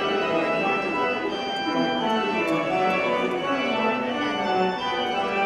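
Organ music: held chords, with notes changing beneath them in the lower middle range.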